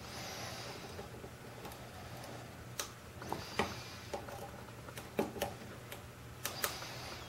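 Hook pick clicking and ticking inside a Euro cylinder lock's keyway as it lifts pins and knocks against the warding under tension wrench pressure. The ticks are faint and scattered, a few sharp ones in the second half, over a low steady hum.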